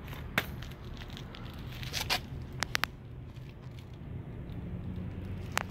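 Scattered handling noises: a few sharp clicks and crinkles, including three quick ticks a little over two and a half seconds in, over a low steady rumble.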